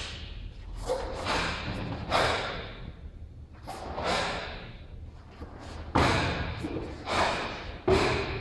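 Karate gi snapping on sharp strikes and blocks, with bare feet thudding on the mats during a solo kata. About eight sharp hits come at irregular spacing, each with a short echo.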